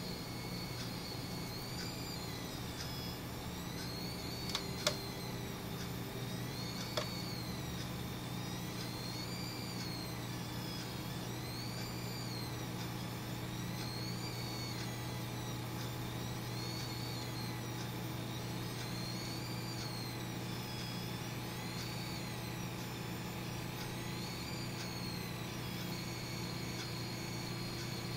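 High-pitched electrical whine, the strange noise the owner attributes to a Seasonic S12EP 650HT power supply, wavering up and down in pitch about every two seconds while the graphics card renders a rotating 3D model, then settling to a steady pitch near the end. Under it is a steady low hum, and there are two sharp clicks a few seconds in.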